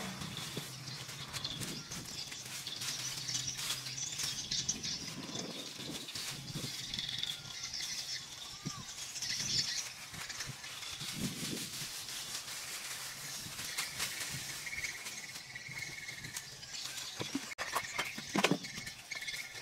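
Birds chirping, with scattered light knocks and rustles. A sharper knock near the end is the loudest sound.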